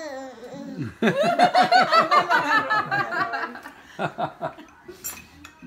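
Laughter: a loud, rapid burst of high-pitched ha-ha-ha laughing begins about a second in and runs for about two and a half seconds, followed by a few shorter chuckles.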